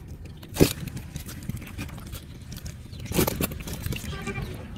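Rustling and scraping of a fine-mesh ring net as fish are picked out of it by hand, with a sharp knock about half a second in and a short run of knocks about three seconds in.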